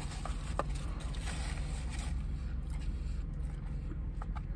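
Steady low hum inside a car cabin, with faint small clicks and rustles of eating and a paper napkin being used.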